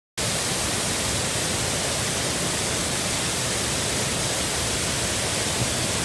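Waterfall pouring over a rock ledge into a shallow pool: a steady, even rush of water.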